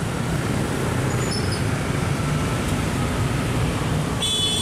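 Slow, congested street traffic: a steady low rumble of tour coach and motorbike engines. A short shrill tone sounds about four seconds in.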